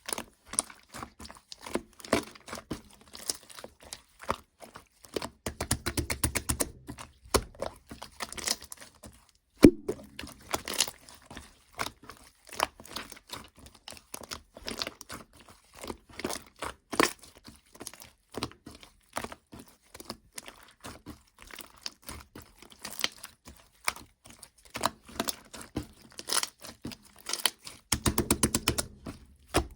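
Slime being squished, pressed and stretched by hand, giving a crackle of small clicks and pops, with rapid runs of tiny clicks about six seconds in and again near the end.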